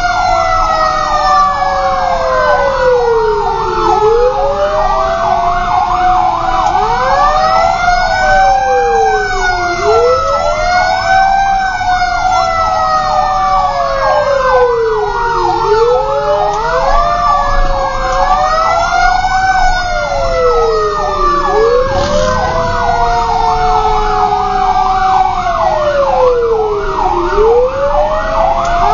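Fire truck sirens, heard from inside the cab. Several siren tones overlap: a wail that rises and falls again every few seconds, a slower tone that sinks steadily, and a fast warbling yelp.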